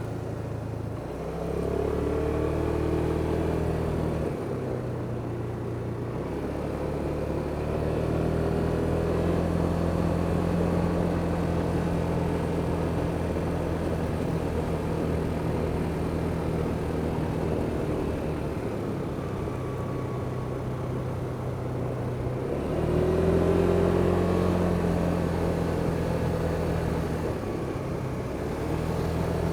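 Kymco Superdink 300 scooter's single-cylinder four-stroke engine running under way, its note rising and easing several times with the throttle.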